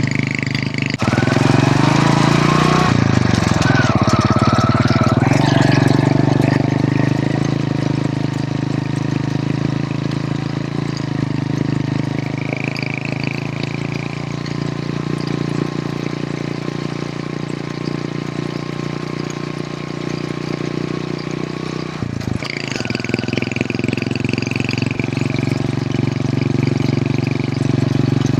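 Hero Honda CD100's single-cylinder four-stroke engine running steadily, its pitch shifting about a second in, wavering over the next few seconds, and changing again about three-quarters of the way through.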